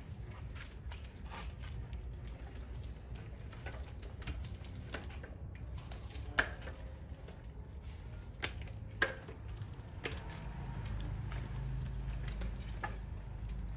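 Irregular light clicks and rattles from a child's bicycle with training wheels being pushed slowly across rough concrete, over a low steady rumble.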